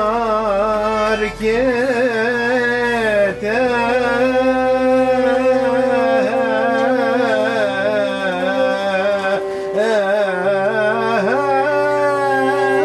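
Live Greek folk music on violin and lute, with a singer drawing out long, wavering held notes between lines of the song.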